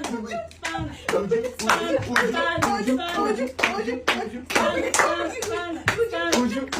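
Hand claps mixed with voices chanting and singing in a sing-song way, cheering someone on.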